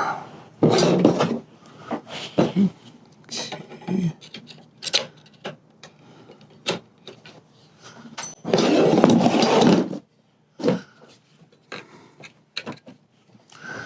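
Hand work on a wooden table being taken apart: scattered clicks and knocks of tools against wood and metal, with a longer rasping scrape about a second in and another about nine seconds in.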